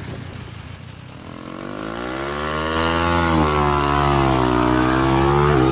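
Trail motorcycle engine growing louder from about a second in as it approaches, its pitch rising and falling with the throttle.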